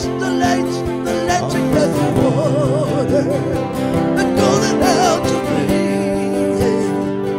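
Acoustic guitar strummed in a steady song accompaniment, with a wordless, wavering melody line above it.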